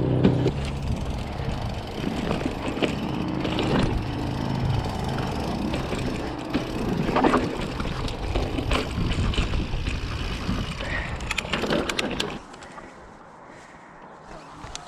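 Mountain bike riding down a dirt trail: steady rush of wind and tyre noise on the chest-mounted camera's microphone, with scattered rattles and knocks from the bike. About twelve seconds in it drops much quieter.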